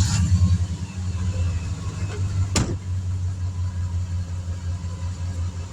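Air compressor motor starting up and running with a steady low drone, with one sharp click about two and a half seconds in.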